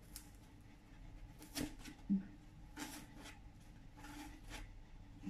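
Small blade cutting slots into a styrofoam (expanded polystyrene) block: a handful of short, faint scratchy strokes, with a brief low sound about two seconds in.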